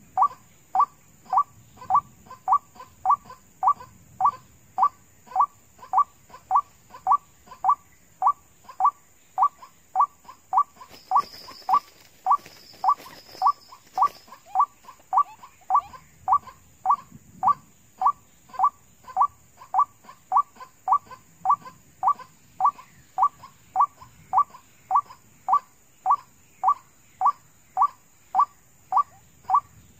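White-breasted waterhen call: one short, downward note repeated at a steady pace of about one and a half to two a second, the lure call used to draw waterhens in to the snares.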